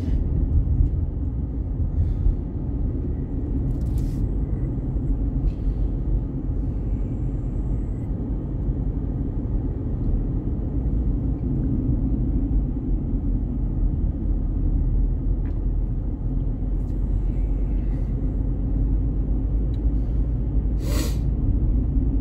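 Car driving on a rough side road, heard from inside the cabin: a steady low road and engine rumble, with a few brief knocks and rattles, the loudest near the end.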